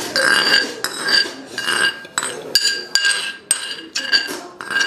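Metal spoon clinking and scraping against a ceramic rice bowl, about three quick strikes a second, each ringing briefly, as the last rice is spooned out of the bowl.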